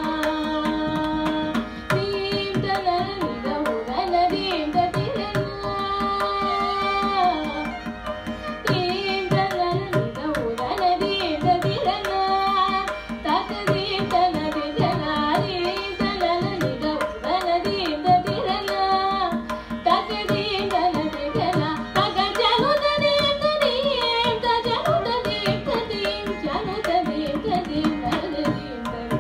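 Carnatic thillana performed live: a woman singing ornamented, gliding melodic lines with violin accompaniment and rapid mridangam drumming. A steady drone holds underneath.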